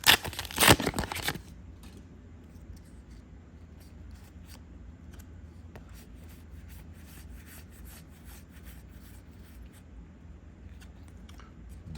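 A foil trading-card booster pack being torn open, with a loud crinkling rip in the first second and a half. Then faint soft clicks and rustles as the cards are handled and flipped through.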